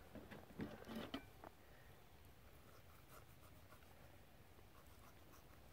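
Near silence, with faint scratching in the first second and a half as a kitchen knife cuts through raw chicken skin and tissue, then a few small faint ticks.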